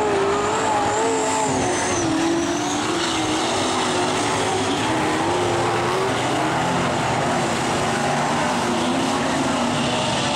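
Several speedway race cars lapping a dirt oval together, their engines running hard as a continuous loud drone, the pitch wavering up and down as the drivers ease off and accelerate.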